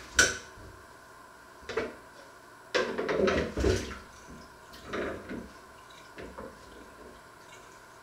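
Kitchenware being handled at a sink: a sharp knock just after the start, then several short spells of clattering dishes and pans over the next few seconds.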